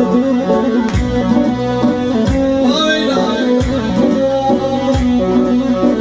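Instrumental interlude from a live band: an electronic keyboard plays a melody over a steady drum beat, with no singing.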